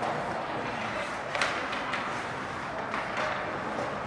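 A few sharp hockey-stick hits during play, the loudest about a second and a half in, over a steady background noise.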